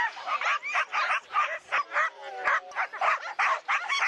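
A team of harnessed sled dogs barking and yipping, with rapid overlapping barks several a second and a drawn-out whine about halfway through. This is the excited barking of sled dogs held in harness at a race start.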